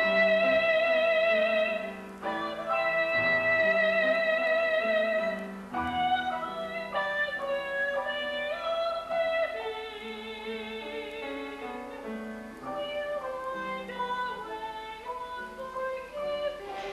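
Slow orchestral music for a stage-musical ballet: a melody of long held notes with vibrato over soft sustained accompaniment.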